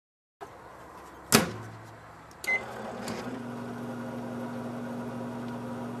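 Microwave oven being started: a sharp clunk about a second in, a short beep about a second later, then the oven runs with a steady hum.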